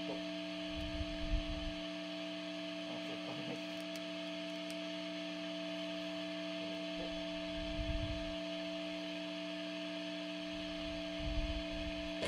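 Steady electrical hum from the amplified electric guitar rig, several steady tones at once, with a few dull low thumps about a second in, near the middle and near the end.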